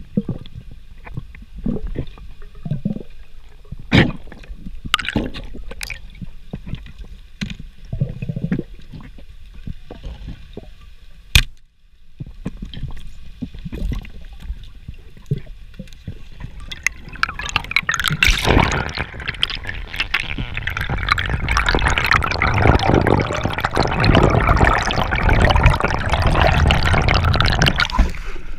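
Underwater sounds of a freediver through a camera's waterproof housing: scattered sharp clicks and knocks, then, from about halfway, a loud continuous bubbling rush of water as the diver comes up toward the surface.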